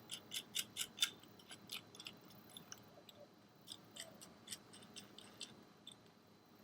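Faint metallic clicking of a nut being screwed down by hand onto a bolt through a plastic fishing-line spool with washers, quick at first, about five clicks a second, then slower and fainter clicks.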